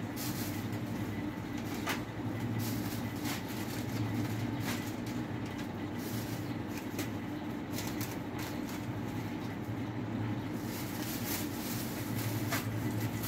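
A thin plastic produce bag crinkling in short bursts every second or two as apples are picked and dropped into it, over a steady low hum.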